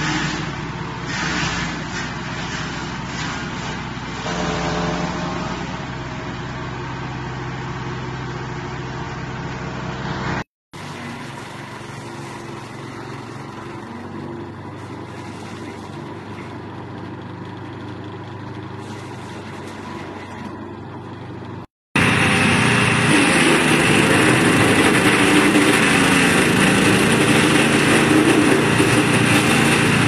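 Small engine-driven wood chippers running and shredding tree branches: a steady engine drone under the noisy grinding of wood being chipped. The sound cuts out briefly about ten seconds in and again about twenty-two seconds in as a different machine takes over, and the last one is the loudest.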